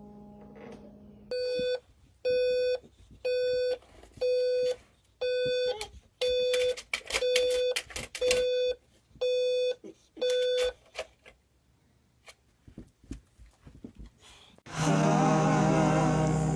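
Electronic beeper sounding a steady pitched beep about once a second, around ten times, with a few clicks among the beeps. Music starts near the end.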